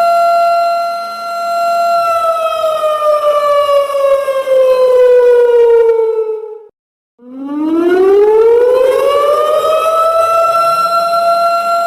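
Simulated alarm siren with a slow wail: a loud steady tone holds, then about two seconds in slowly falls in pitch for several seconds, cuts out briefly midway, and rises back up to settle on its steady high tone near the end.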